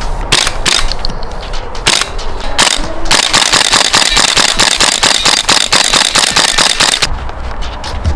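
Airsoft AR-15 replica firing: a few single shots, then a rapid-fire burst of about four seconds starting around three seconds in, ending sharply, with a few scattered shots after.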